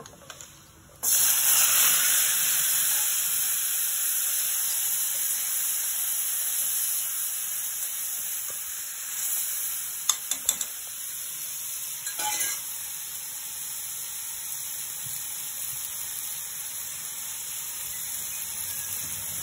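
Grated tomato pulp hitting hot oil in a metal kadai sets off a loud sizzle about a second in, which slowly settles into a steady frying hiss. A few short knocks of a spatula against the pan come around the middle.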